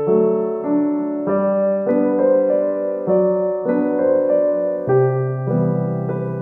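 Background piano music: a keyboard melody over held chords, with notes changing about every half second.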